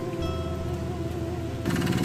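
Background guitar music. About a second and a half in, it cuts off abruptly to a diesel engine running, the engine of a small double-drum road roller.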